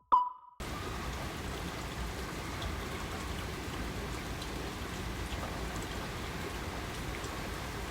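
A last echoing synth note with a thump dies away in the first half second. Then a steady hiss of rain takes over, with faint scattered drops.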